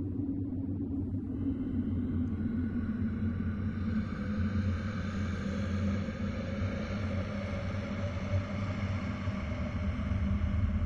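Horror ambience drone: a steady low rumble, with a layer of higher, held eerie tones fading in about a second in and slowly building.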